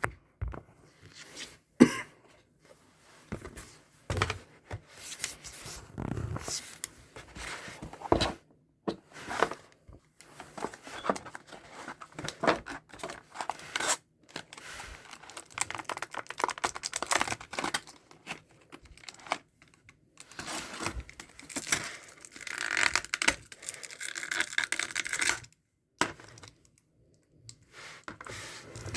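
Packaging being handled and torn open: irregular tearing, rustling and scraping, with a few short pauses.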